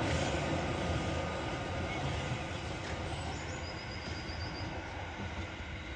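Merseyrail Class 777 electric multiple unit running away along the track, its rumble and wheel noise fading steadily as it recedes.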